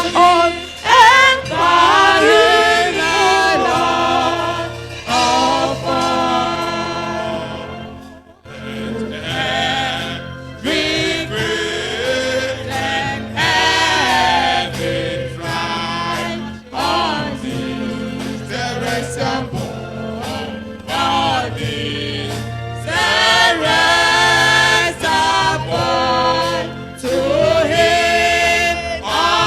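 Church congregation singing a hymn together, with a short pause between lines about eight seconds in.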